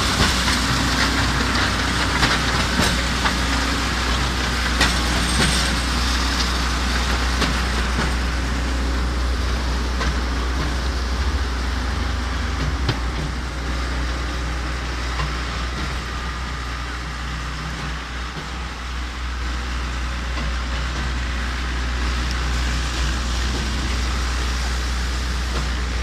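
Diesel engine of a mobile concrete mixer pump running steadily, with a few sharp knocks in the first several seconds.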